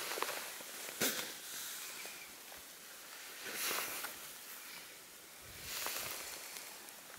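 Wind gusting over the microphone in open grassland, swelling and easing three times, with a sharp handling click about a second in.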